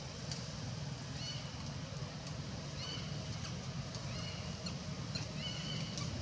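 Outdoor ambience: a steady low rumble with short high chirps repeating about once a second.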